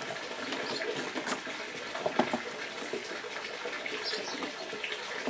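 A few short clicks of a white plastic cable tie being threaded and pulled tight around ficus roots and a rock, the loudest about two seconds in, over a steady rushing noise like running water.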